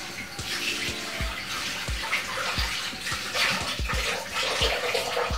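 Water running steadily from a kitchen tap, stopping near the end, over background music with a regular bass beat.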